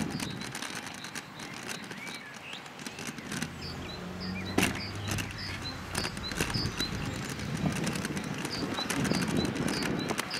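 A sport kick scooter rolling along paving and a cycle path, its wheels giving a steady low rumble with scattered clicks and one sharp knock about halfway through. A bird chirps repeatedly, about twice a second, from a few seconds in.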